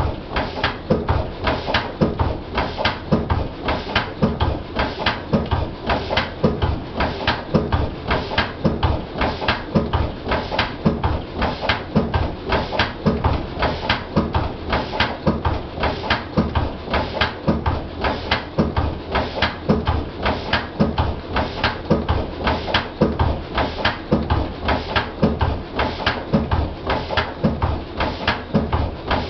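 Lister CS single-cylinder stationary diesel engine running steadily at its governed speed, with an even beat of sharp exhaust and combustion knocks several times a second.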